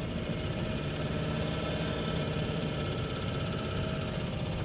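Goggomobil T700's air-cooled flat-twin engine running steadily while the car is under way, heard from inside the small cabin along with tyre noise on a wet road.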